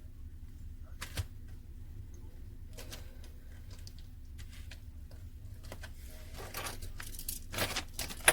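Scattered small clicks, taps and rustles of handling as a phone's loudspeaker assembly is fitted back onto it, over a steady low hum, with a louder run of clicks near the end.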